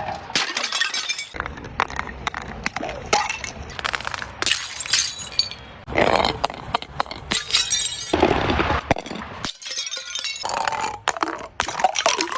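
Glass bottles shattering one after another in several separate smashes, each followed by crackling and clinking shards.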